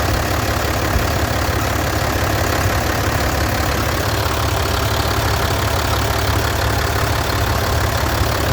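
Mercedes-Benz OM906 inline-six diesel of a 1620 truck idling steadily, with an added noise that sounds like a worn bearing but comes from the accessory drive belt.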